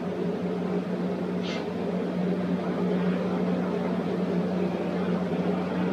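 A steady low mechanical hum with an even airy hiss, like a fan or other running machine, and one short hiss about one and a half seconds in.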